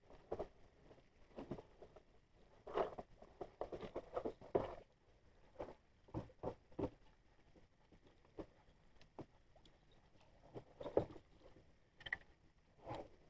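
Faint, irregular knocks and splashes of water against a small fishing boat's hull, bunched about three to five seconds in and again near eleven seconds.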